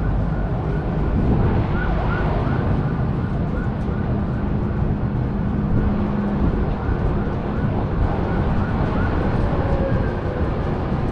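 Distant emergency-vehicle siren yelping, a quick rising-and-falling whoop repeating two or three times a second, over a steady rumble of city traffic and wind.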